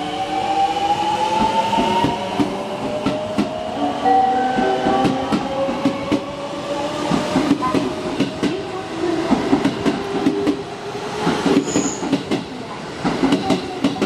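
Electric commuter train pulling away, its traction motors whining in several tones that rise steadily in pitch as it gathers speed. Its wheels clack over rail joints, the clicks coming thicker near the end.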